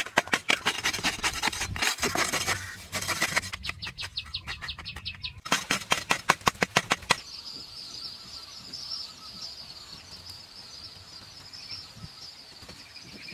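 A digging tool chopping and scraping into dry, hard soil in quick repeated strikes, several a second. About seven seconds in the strikes stop and a steady high-pitched drone carries on.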